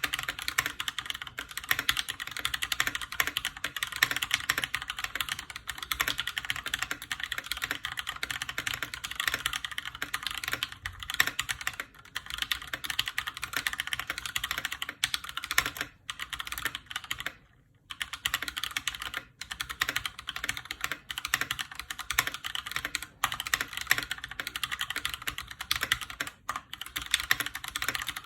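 Steady fast typing on a Keychron K6 mechanical keyboard with stock, unmodded Gateron Brown tactile switches: a dense stream of key clicks and clacks. It pauses briefly a few times.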